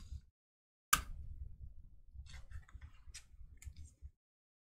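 Handling noise from a thick trading card held in the fingers: one sharp click about a second in, then faint scattered clicks and rubbing as the card is turned.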